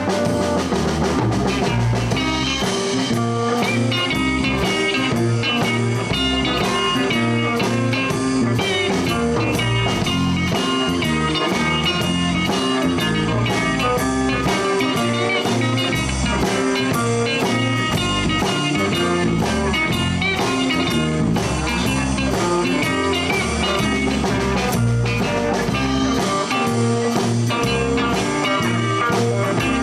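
Live blues band playing an instrumental break: electric guitar lead over bass and a drum kit keeping a steady shuffle beat.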